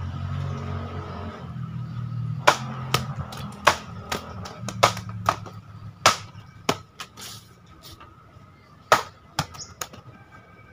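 Homemade katana chopping through an upright banana trunk: starting about two and a half seconds in, a quick, irregular run of about fifteen sharp cuts over some seven seconds, the loudest near the middle and about a second before the end. Under the first few seconds a passing vehicle's engine hum fades out.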